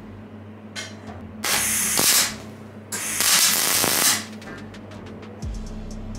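MIG welder tacking a steel square-tube joint: a short blip of arc, then two bursts of crackling arc about a second each, at about two and three seconds in, over a steady low hum.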